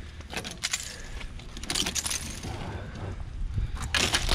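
Icicles and freezing-rain ice on a car's rear bumper clinking and snapping as a gloved hand breaks them off: a run of small sharp cracks and tinkles, with louder crunching about two seconds in and again near the end.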